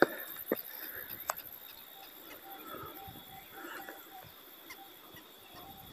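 Footsteps of a hiker on a dirt trail: a few sharp steps in the first second and a half, then softer ones.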